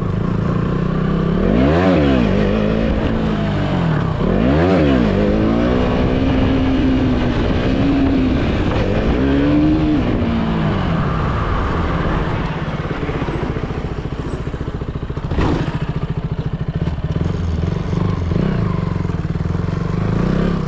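KTM Duke 200's single-cylinder engine being revved hard up and down twice, then through a string of shorter rises and falls in pitch. It settles to a steadier note about halfway through. There is a single sharp knock a few seconds later.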